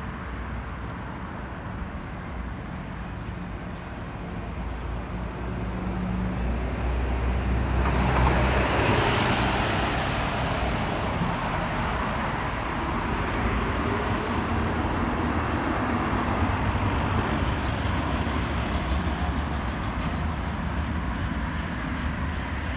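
Street traffic: a motor vehicle's engine rumble builds and it passes close about eight seconds in, then a steady hiss of road noise carries on.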